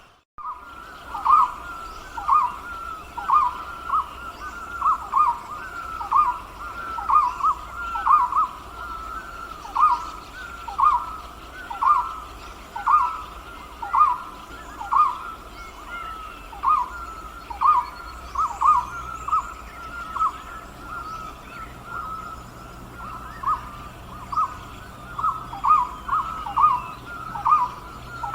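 A forest bird calling over and over in short mid-pitched notes, about one or two a second, with other birds chirping faintly behind.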